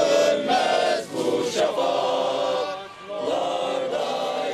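A group of men singing together in unison, with long held notes.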